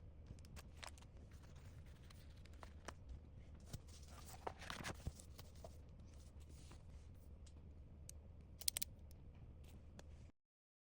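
Near silence: faint room tone with scattered soft clicks and rustles, a brief cluster of louder clicks near the end, then the sound cuts to dead silence.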